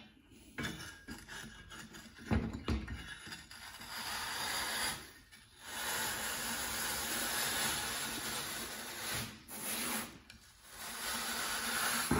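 Amcraft blue V-groove tool pushed along a layout square, its blades scraping a groove through fiberglass duct board in three long, even, hissy passes with short pauses between. A couple of knocks come before the first pass.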